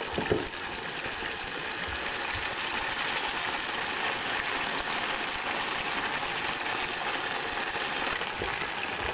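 Tempura-battered fluke fillet deep-frying in hot oil: a steady sizzle, with a short knock about a third of a second in.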